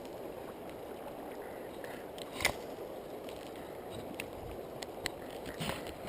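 Steady wash of water and wind around a small fishing boat, with a few light knocks and clicks. The sharpest knock comes about two and a half seconds in.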